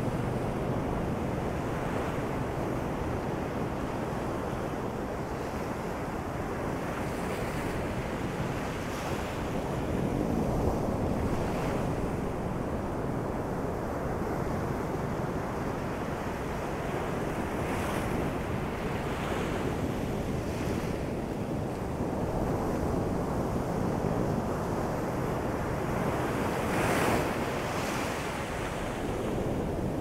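Ocean surf on a sandy beach: a steady rush of waves breaking and washing up, with a wave now and then breaking a little louder.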